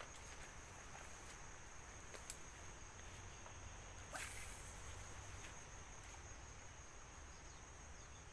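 Insects chirring steadily in a thin, high band, with a sharp click about two seconds in and a brief swish of a fishing rod being cast about four seconds in.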